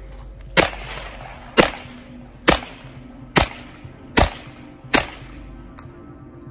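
MKE AP5 9mm pistol, an MP5 clone, fired six times in semi-automatic, one shot about every second. Each shot is a sharp crack followed by a short echo.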